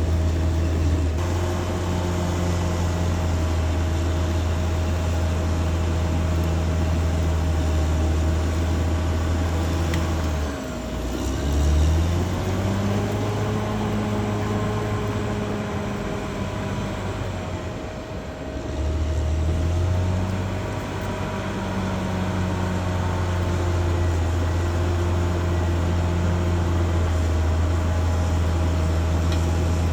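Caterpillar D6R XL bulldozer's diesel engine running steadily under load, with a constant higher whine over it. About ten seconds in the engine note dips sharply and climbs back up, and a little past halfway it eases off briefly before picking up again.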